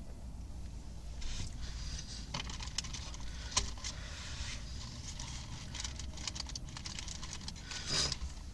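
A person eating a burger close to the microphone: chewing with many small crackles and clicks, over a steady low hum.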